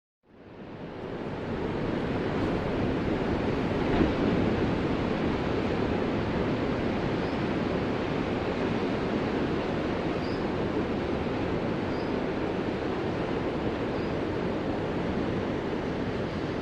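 Ocean surf: a steady, unbroken wash of waves, fading in from silence over the first second or two.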